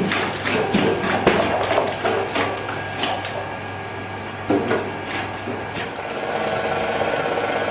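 Slitmaster French fry cutter running with a steady motor hum and frequent sharp clacks from potatoes inside the cutting head. A louder knock about four and a half seconds in as a potato drops into the hopper and is sliced; near the end the clacks thin out to a steadier running sound.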